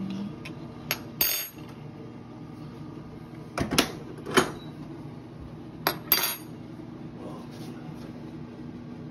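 Metal utensils clinking and clanking against a pot and dishes: several sharp knocks, the loudest about four and a half seconds in. A steady low hum runs underneath.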